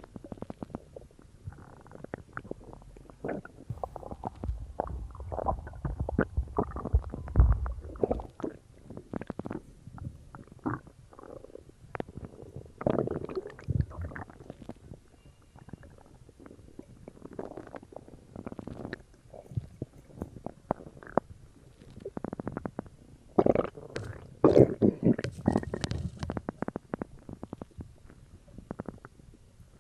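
Human stomach growling and gurgling after drinking cola: irregular bubbly gurgles and crackles with a low rumble early on, and the loudest run of gurgles about three quarters of the way through.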